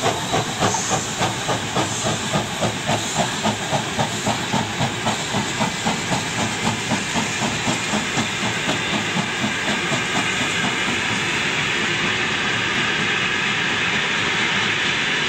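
Two steam locomotives working hard in double-heading, their exhaust chuffing in a steady beat that quickens, with hissing steam. Later the beats blend into the steady rumble of the passenger coaches rolling past.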